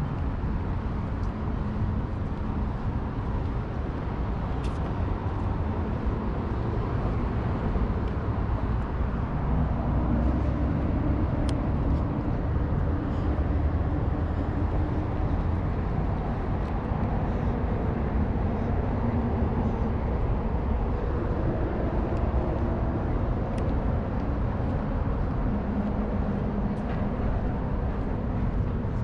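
Steady outdoor city background: a continuous low rumble of traffic, with a faint engine hum rising and fading now and then.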